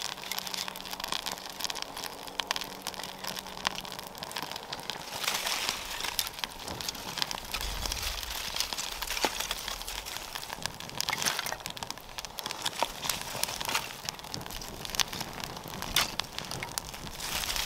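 Birch bark tinder being worked to light: crinkling and crackling with many scattered sharp clicks, and a few louder, brief rasping bursts along the way.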